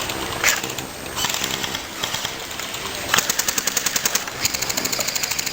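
Airsoft guns firing on full auto: rapid, evenly spaced clacking bursts, a shorter one about a second in and a longer one starting about three seconds in.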